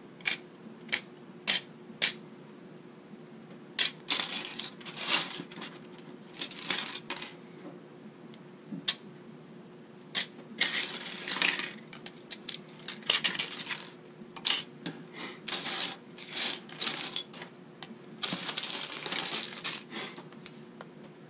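Plastic LEGO pieces clicking and clattering on a wooden tabletop as hands rummage through a loose pile: single sharp clicks, with stretches of dense rattling in between.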